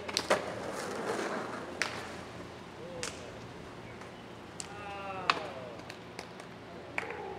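A group of men's voices calling out in celebration, one long falling shout about five seconds in, over sharp slaps and clacks: a high-five slap near the start and skateboard clacks on the pavement.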